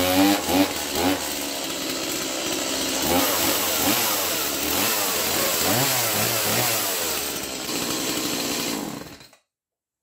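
Stihl MS 180 chainsaw's small two-stroke engine running just after starting. It is revved up and down several times and then cuts off abruptly about nine seconds in.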